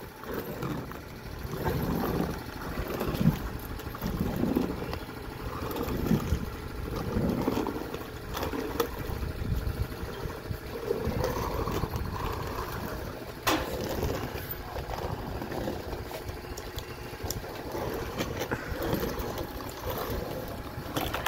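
Hand laminate roller being worked back and forth over a freshly glued fibreglass RV sidewall panel, an uneven rumbling that swells and fades with each pass. A single sharp click sounds about thirteen seconds in.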